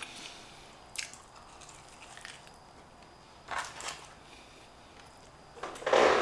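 Quiet eating sounds: soft chewing and small handling noises, with a sharp click about a second in and a louder noise near the end.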